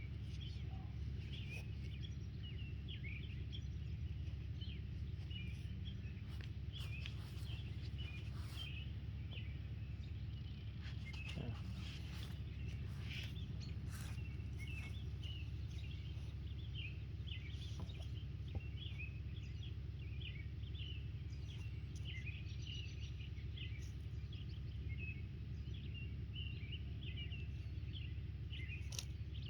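Small birds chirping and twittering on and off over a steady low background rumble, with a few scattered clicks and rustles.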